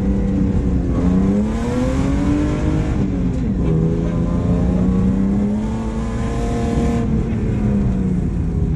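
BMW 328i rally car's engine heard from inside the cabin, accelerating on a gravel stage: its pitch climbs, drops sharply at an upshift about three seconds in, climbs again and falls back near seven seconds, over a steady hiss of gravel and road noise.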